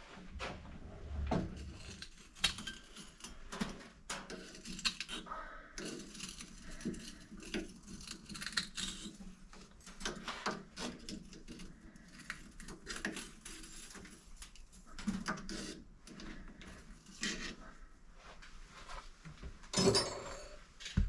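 Metal tools and parts being handled and set down at a lathe: irregular clinks, taps and clatter, with a louder knock near the end.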